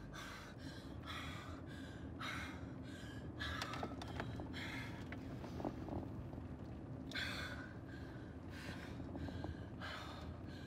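A woman's quick, heavy breathing and gasps, about two breaths a second, with the strongest gasp about seven seconds in, over the low steady rumble of a moving car's cabin.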